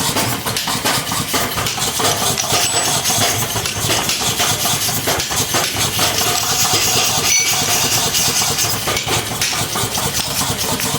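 An engine or engine-driven machine running steadily, with a dense, rapid clatter.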